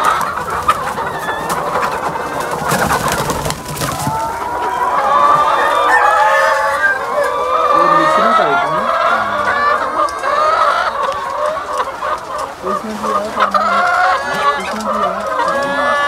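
A large flock of laying hens in a crowded poultry house, many clucking and cackling at once in a dense, continuous chorus. A brief rustling burst comes about three seconds in.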